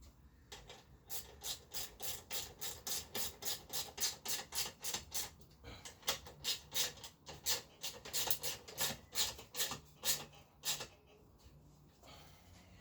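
A ratchet spanner with a 10mm socket worked quickly back and forth, its pawl rasping at about four strokes a second with short pauses, until it stops near the end.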